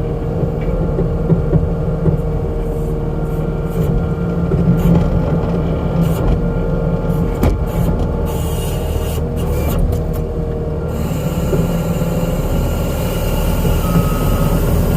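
Skid steer's diesel engine running steadily under load as its forks are pushed under a fuel tank, with a few scrapes and knocks of steel partway through and a rising hiss in the second half. A back-up alarm starts beeping near the end.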